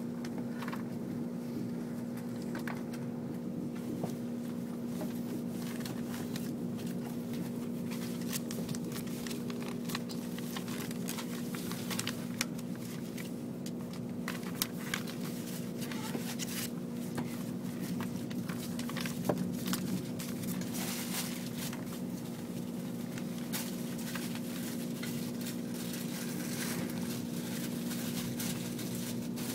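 Cabin noise inside an ICE high-speed train as it runs along the line: a steady low hum with a held drone, and scattered faint clicks and ticks.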